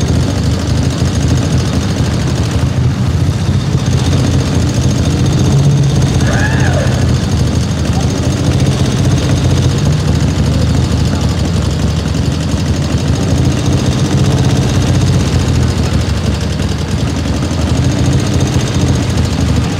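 Old military-style sidecar motorcycle engine idling close by, a steady low rapid pulsing, while vintage cars drive slowly past.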